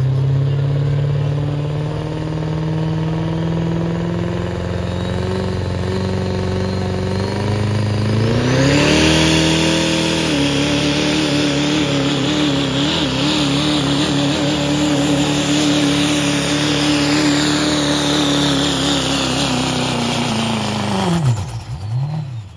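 Diesel engine of a Chevrolet Silverado heavy-duty pickup at full throttle pulling a sled. The revs climb slowly, jump higher about eight seconds in and hold there with a high whine above the engine, then drop off sharply near the end as the pull ends.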